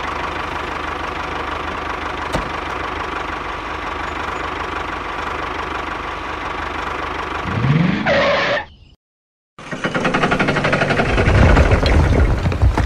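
Tractor engine running steadily. About eight seconds in, a rising sweep cuts in and breaks off into a short silence, then the engine runs on louder and rougher.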